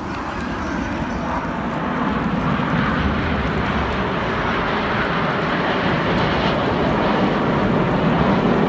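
Jet noise from a formation of BAE Hawk T1 jets, each with a single Adour turbofan, flying past overhead: a steady rushing roar that grows gradually louder.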